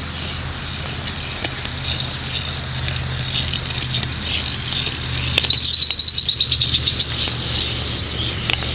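Outdoor birdsong: a fast, high trill of about a dozen notes a second lasts around a second and a half, starting about five seconds in. Fainter high chirps and ticks run throughout, over a steady low hum.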